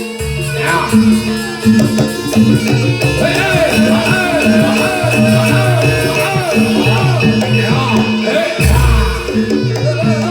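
Javanese barongan accompaniment music: a repeating pitched-percussion figure and drums under a wavering melody line.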